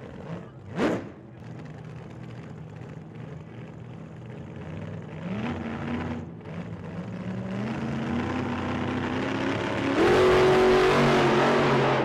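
Car engine heard from inside the cabin while driving, its pitch climbing as the car accelerates and dropping at a gear change about six seconds in, then rising again over road noise. A brief sharp rising whoosh comes about a second in, and the engine and road noise step up suddenly and get louder near the end.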